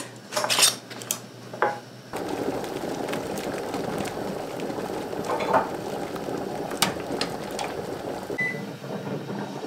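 Glass canning jars and a metal jar lifter clinking as pint jars are lowered into a boiling-water-bath canner, then the steady rush of the water at a rolling boil, with a few more clinks and a brief high beep near the end.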